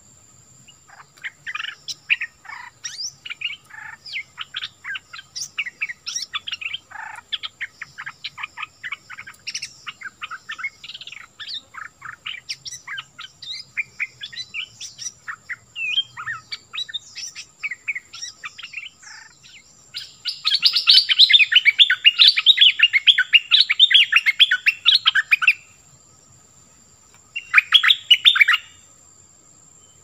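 Stripe-throated bulbul singing: a long run of quick, varied chirping notes. Past the middle it breaks into a louder, denser burst of song lasting about five seconds, then gives one short burst near the end.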